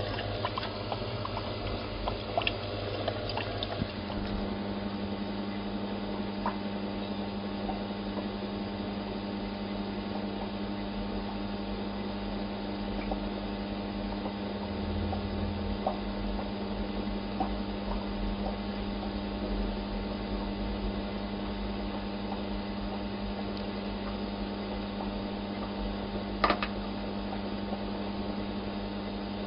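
Steady electrical hum of aquarium equipment running, with a wash of moving water underneath. The hum settles onto one low steady tone about four seconds in, and a single sharp click comes near the end.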